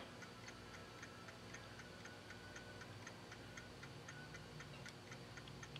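Near silence: room tone with a faint, even ticking several times a second.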